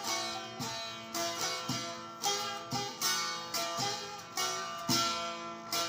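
Instrumental break in a Kurdish folk song: a plucked string instrument plays a melody of quick, sharply struck notes that ring out and fade, with no singing.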